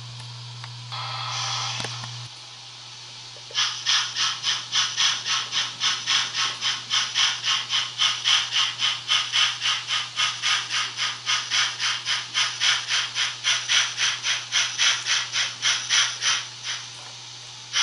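Sound decoder of a Märklin model steam locomotive: a short hiss of steam, then steady chuffing at about three beats a second that stops shortly before the end.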